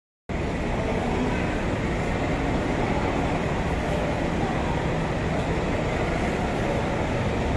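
Steady traffic noise of cars and a coach in a covered pickup lane: a continuous, even noise with no distinct events, which begins abruptly after a split second of silence.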